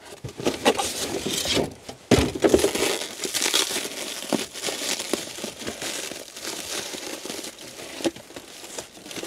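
A cardboard box being opened and unpacked by hand: irregular crinkling and rustling of the packaging, with a sharp knock about two seconds in.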